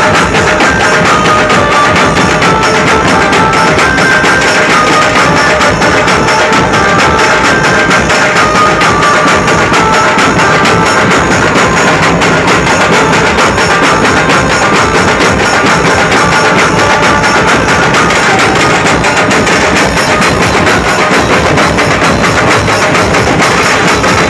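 Dhumal band music played loud through horn loudspeakers: an electronic keyboard melody over a dense, driving drum beat.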